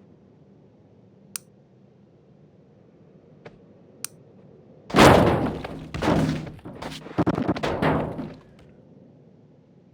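A tree coming down: a few sharp cracks, then about five seconds in a sudden loud crash of trunk and branches hitting the ground. The crash comes in several waves and dies away after about three seconds.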